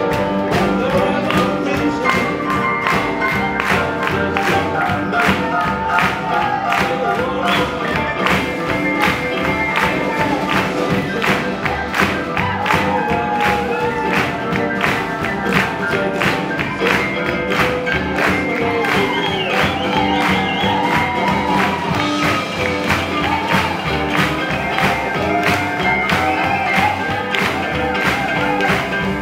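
Live swing jazz band playing a tune with a steady beat.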